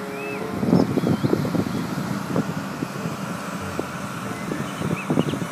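Articulated city bus driving round a tight circle, its engine running under wind noise on the microphone, with a few faint short high chirps near the start.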